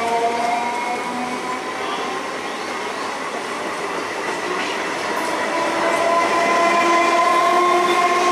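Old green electric multiple unit (EMU) local train running past while accelerating: its electric traction motors whine in several tones that slowly climb in pitch, over the rumble and clatter of the wheels on the rails. It grows louder in the second half.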